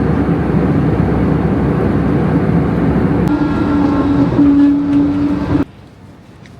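A motor vehicle on the move: loud, steady road and engine rumble. A steady droning tone joins about three seconds in, and the sound cuts off abruptly near the end.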